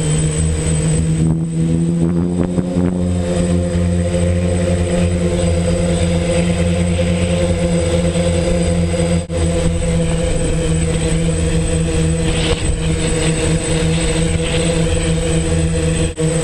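DJI F550 hexacopter's electric motors and propellers, heard from the camera mounted on the frame: a loud, steady drone with a few held pitches that shift slightly, dipping briefly about nine seconds in and again near the end.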